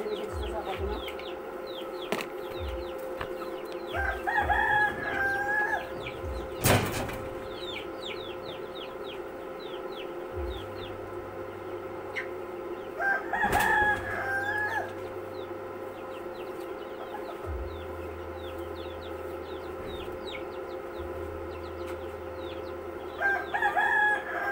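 A rooster crowing three times at intervals of about nine seconds, each crow short. A single sharp knock comes between the first and second crow, over a steady faint hum.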